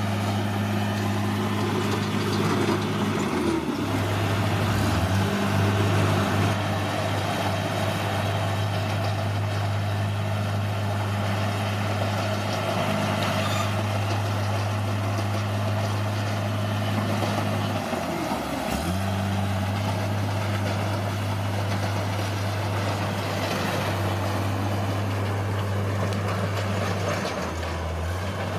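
Bulldozer's diesel engine running steadily, its pitch dipping and shifting briefly a few seconds in and again past the middle.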